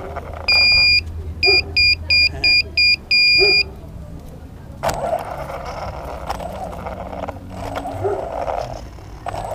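A loud, high-pitched electronic beeper sounds one long beep, a run of six short beeps, then another long beep. After a sharp click about five seconds in, the electric RC car's motor and tyres run over the concrete.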